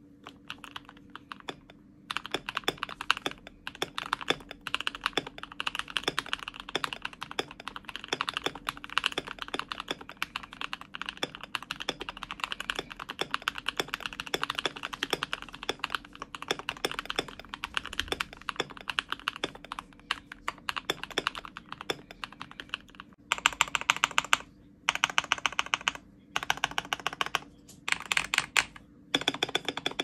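Typing on a custom KBD67 Lite gasket-mount mechanical keyboard with lubed, filmed Burgundy King frankenswitches, a polycarbonate plate and PBT Cherry-profile keycaps. Steady, fast keystrokes start about two seconds in. Near the end they give way to several short rapid bursts with brief pauses between them.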